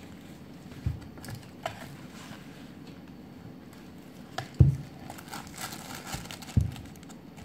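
Takeout food packaging handled on a table: light crinkling and rustling of a plastic or paper packet with a few short, soft thumps on the tabletop, the loudest a little over halfway through.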